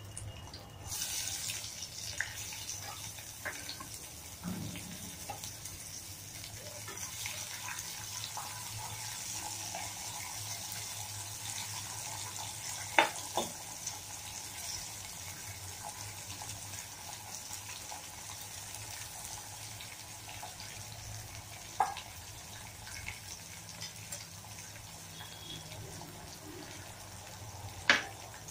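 Sliced onions sizzling in hot mustard oil in a kadhai, a steady hiss from about a second in, with a few sharp clicks of the stirring spoon striking the pan.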